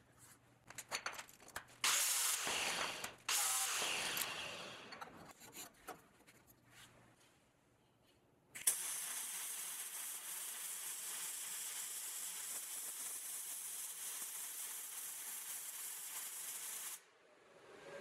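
Steel square tubing being handled and clamped on a steel table, with clicks and scraping, followed about halfway through by a welding arc plug-welding an insert into the tube, a steady hiss for about eight seconds that cuts off abruptly near the end.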